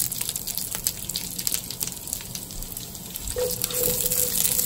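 Chopped onions sizzling and crackling in a hot pot of olive oil and browned sausage drippings, just starting to sauté.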